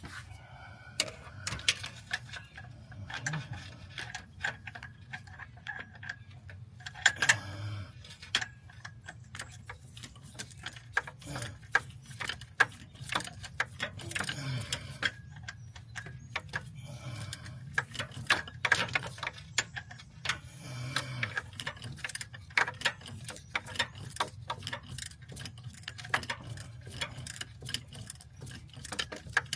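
Hand ratchet clicking in short runs as bolts are worked loose, with sharp metal tool clicks coming irregularly and more densely in the second half, over a faint low hum.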